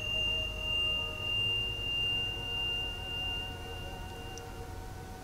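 A single high, pure ringing tone that holds steady and fades out about four and a half seconds in. Under it runs a soft low hum that gently swells and ebbs, with quieter wavering tones.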